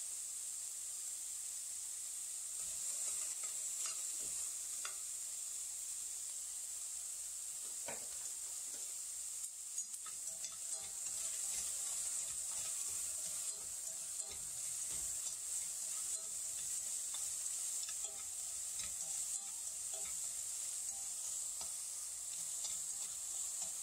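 Chunks of beef sizzling steadily as they stir-fry in a pot over low heat, with the occasional scrape and tap of a utensil against the pot as the meat is stirred.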